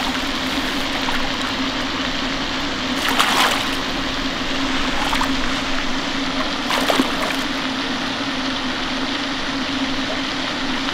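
A hooked blue catfish of about six pounds splashing at the surface as it is brought to the bank, a few splashes with the loudest about three seconds in, over a steady background hiss and low hum.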